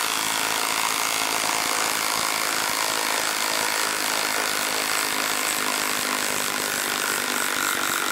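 Milwaukee M18 Fuel 2960-20 cordless impact wrench hammering steadily at full speed as it backs a 5/8-inch by 8-inch lag bolt out of a wooden log.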